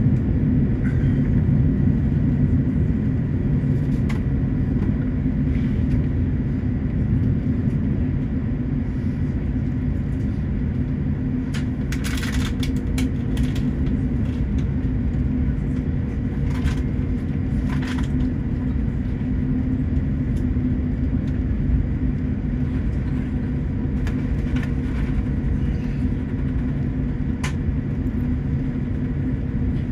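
Steady low rumble and hum inside the cabin of a stationary airliner, the engines and air conditioning still running, with a few brief clicks midway and near the end.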